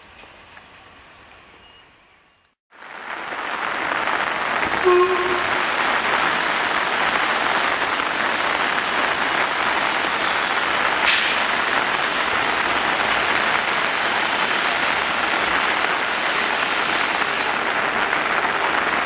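Heavy rain pouring steadily, a dense even hiss that starts abruptly about three seconds in, with one sharp tap around the middle.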